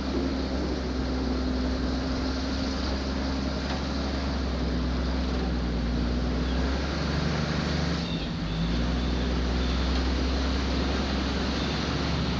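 Vehicle engine running with road noise, heard from inside as it drives. The engine note drops briefly about eight seconds in, then carries on.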